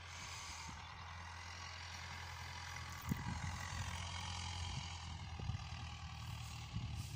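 Steyr 8073 tractor's diesel engine running with a steady low drone as it works the field with a mounted plough. A single knock sounds about three seconds in.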